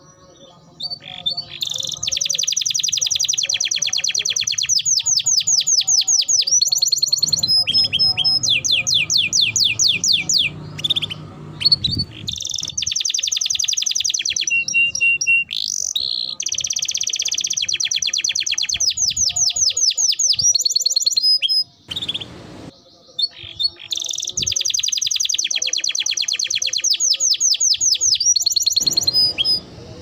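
A domestic canary singing long, fast rolling trills in several phrases, each a few seconds long, with short breaks between them.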